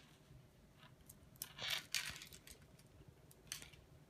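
Small plastic toy pony being worked free of its clear plastic packaging: a few faint crinkles and clicks of plastic, the loudest a little under two seconds in.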